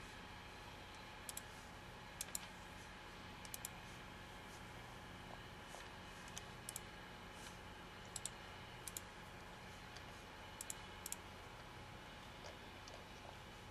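Faint, sharp clicks, mostly in close pairs, coming irregularly about once a second over a faint steady room hum with a thin constant tone.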